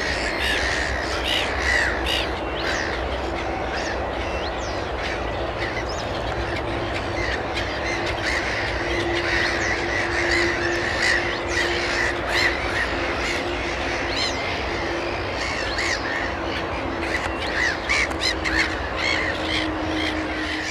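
Black-headed gulls calling: many short, harsh calls overlapping without pause, over a faint steady low hum.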